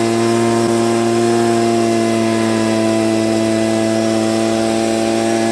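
Stihl BG55 leaf blower's two-stroke engine running steadily at an even pitch, with the rush of air from its blower tube. It runs again now that the dirt plugging its muffler spark arrestor has been cleaned out.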